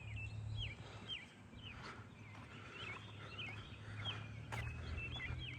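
American robin singing: a string of short whistled, slurred phrases, faint, over a low steady hum.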